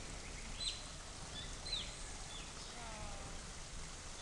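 Otters giving several short, high-pitched squeaky chirps that drop in pitch, with a lower falling call about three seconds in.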